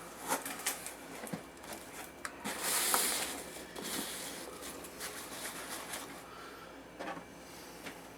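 Starch-based packing peanuts rustling in a cardboard box as hands dig through them: scattered light rustles and clicks, with a louder, longer rustle about three seconds in.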